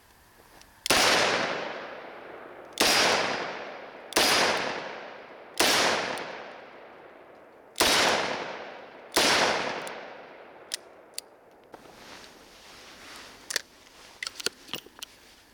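Six shots from a Smith & Wesson 586 L-Comp .357 Magnum revolver, fired at an unhurried, uneven pace over about nine seconds. Each shot leaves a long fading echo. Then come light metallic clicks as the cylinder is swung open and the empty cases are ejected.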